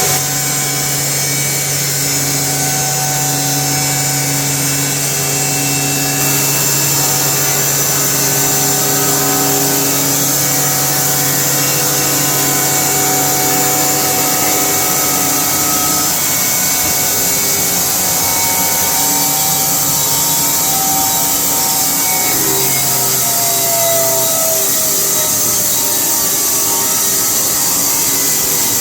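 Big Red 1200 C band sawmill running steadily, its band blade sawing through a log, with a tone sliding slowly down in pitch near the end.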